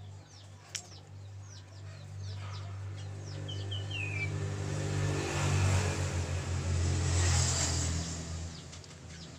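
A motor vehicle passing by, its engine hum swelling through the middle and fading near the end, while small birds chirp with quick downward notes.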